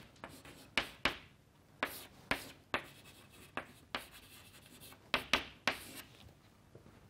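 Chalk writing on a chalkboard: a dozen or so sharp taps and short scraping strokes, irregularly spaced.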